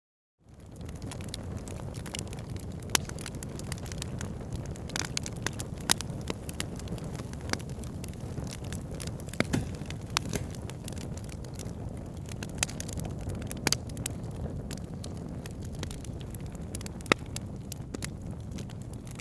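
Fire burning in a fireplace: a steady low rumble of flames with irregular sharp crackles and pops scattered throughout. It fades in from a brief silence at the very start.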